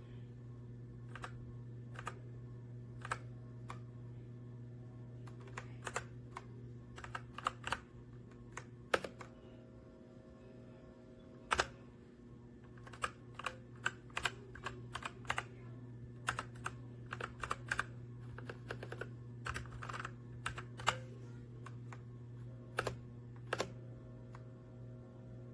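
Keys of a Redragon K617 60% mechanical keyboard being typed on, irregular single clicks and quick runs of keystrokes, over a steady low hum.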